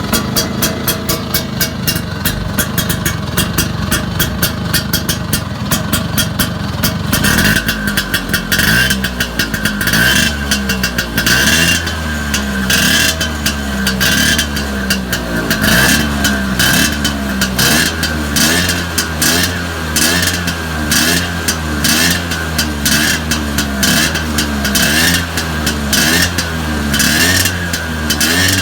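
Vespa PX two-stroke single-cylinder engine, fitted with a reed-valve (membrane) carburettor intake and a big-box exhaust, running at idle, then from about seven seconds in revved up and down over and over, roughly once a second.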